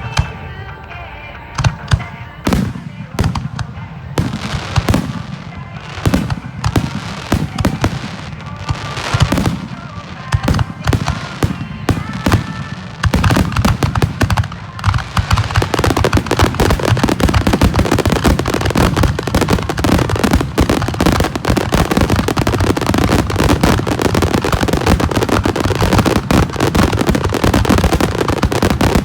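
Aerial fireworks bursting overhead in a finale, heard from close beneath: separate sharp booms for roughly the first half, then from about halfway a dense, nonstop barrage of bangs and crackling.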